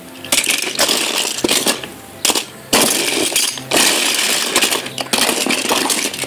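Diecast metal toy cars (Hot Wheels and Matchbox) clattering against each other as a hand rummages through a box full of them, in several bursts of rattling with brief pauses between.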